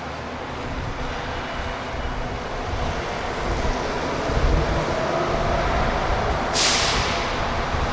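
Tateyama Tunnel Trolleybus, an electric trolleybus, running in the tunnel station. A steady hum with a held whine grows gradually louder, and a sudden sharp hiss of air cuts in near the end, then quickly fades.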